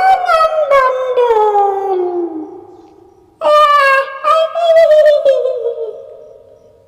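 Eerie high wailing cries of a staged kuntilanak ghost voice: one long wail gliding down in pitch, then, after a short gap, a second wail held with a waver and slowly fading.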